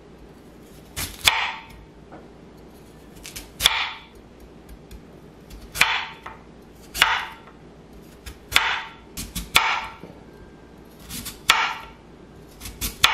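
Chef's knife slicing firm raw peeled sweet potatoes on a cutting board: about a dozen cuts, roughly one a second and unevenly spaced, each a short crunch through the flesh ending in a sharp knock of the blade on the board.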